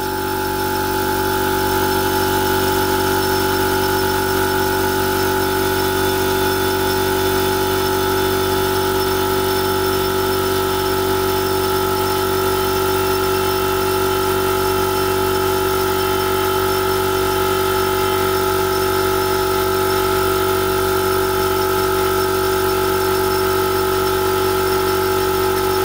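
Electric air compressor running steadily, building air pressure toward 100 PSI to feed a leak-down tester. It is a steady motor drone that gets a little louder over the first couple of seconds.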